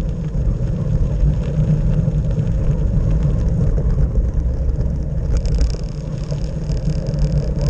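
Steady low rumble of wind buffeting and tyre vibration picked up by a camera mounted on a moving bicycle's handlebars. About five seconds in, a higher hiss joins on top.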